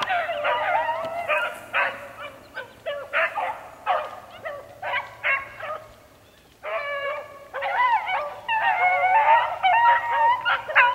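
Pack of beagles baying on a rabbit's track, many voices overlapping. The cry drops away about six seconds in and picks up again a moment later.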